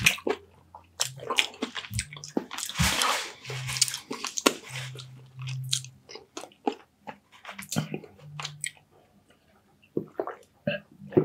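Close-miked mukbang eating: wet chewing and lip smacking on mouthfuls of baked sea bass and rice, with many small clicks, and a louder wet stretch about three seconds in.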